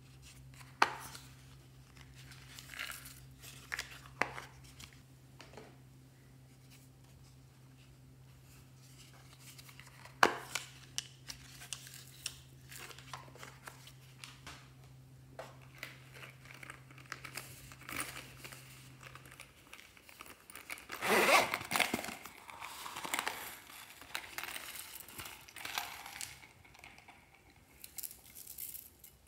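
Handling noise from slime toppings and a small plastic toy chest: a few sharp plastic clicks, then a louder stretch of crinkling and rustling about two-thirds through, followed by lighter crinkly rustles as a hand works through sequins and beads on glue.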